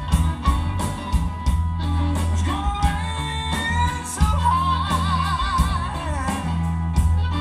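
Electric blues band playing live: electric guitar, bass guitar and drums under a male lead vocal, sung with a wavering vibrato a little past the middle.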